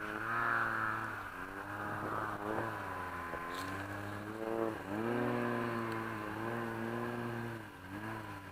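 Snowmobile engine running, its revs dipping and climbing back several times, fading near the end.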